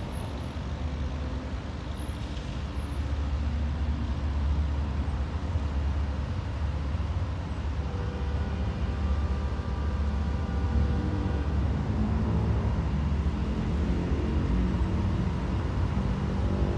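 Diesel-electric freight locomotives approaching, a low engine rumble growing steadily louder, with a higher steady hum joining about halfway through.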